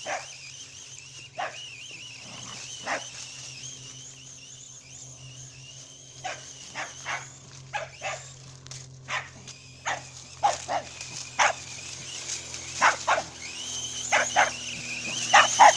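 A dog barking in short sharp barks, sometimes in quick runs, with a pause of a few seconds near the start and more barking in the second half. A continuous high whine that wavers in pitch runs underneath.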